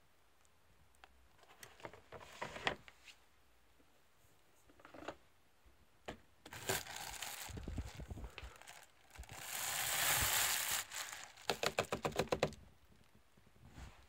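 Plastic bag liner of a litter-disposal pail crinkling as it is handled, then a longer noisy rush of used cat litter being tipped from a plastic scoop into the bag, followed by a quick run of rattling clicks near the end.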